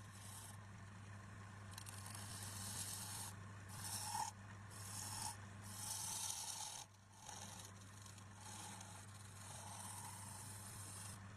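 Abrasive scraping on wood in repeated strokes, each about a second long with short breaks between, over a steady low hum.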